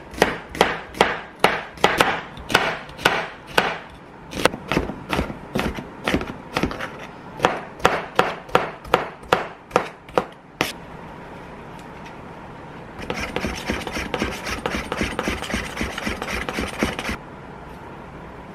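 Kitchen knife chopping on a cutting board, steady strokes about two a second for some ten seconds. After a short pause comes a few seconds of quick, dense knife work.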